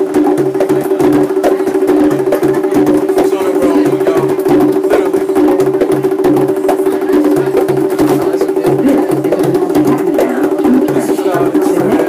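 Drumming: fast stick clicks and knocks in a steady rhythm, over a regular deep beat and a held tone.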